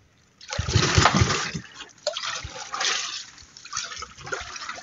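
Wooden paddle stroking through seawater beside an outrigger boat, three splashing strokes, the first the loudest.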